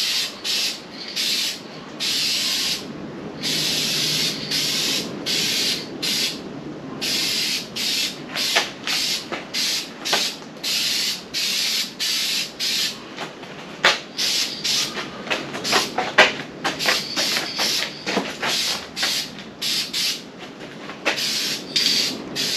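Aerosol spray can of trim and bumper paint hissing in many separate bursts, some brief and some lasting a second or two, as a coat of paint is laid on.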